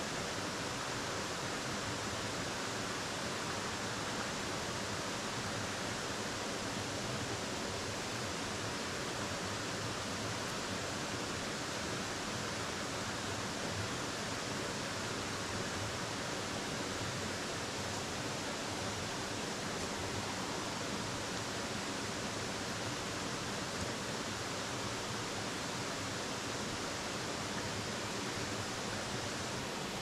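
Steady rush of a stream cascading over bare rock.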